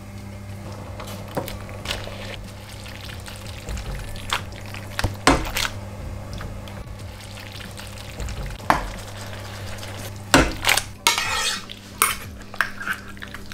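A utensil clinking, knocking and scraping against a cooking pan as food is stirred, with a few sharp knocks and a busier cluster of them near the end, over a steady low hum.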